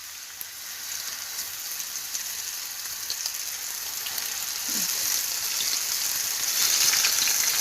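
Flour-coated chicken breast pieces frying in hot oil in a pan: a steady sizzle with fine crackles, growing louder.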